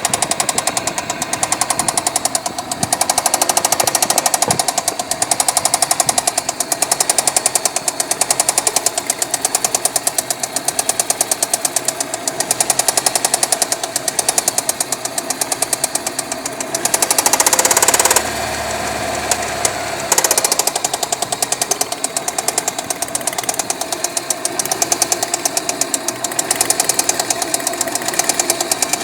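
Daewoo Nexia engine running with a rapid, even knocking from inside the engine, the fault the owner is showing. There is a short louder stretch about seventeen seconds in, then a couple of seconds where the knocking gives way to a smoother sound before it returns.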